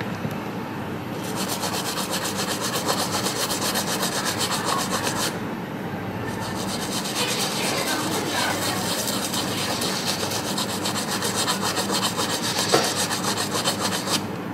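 Rapid back-and-forth scrubbing on a circuit board, in two long spells with a short pause about five seconds in, cleaning corrosion off the liquid-damaged board.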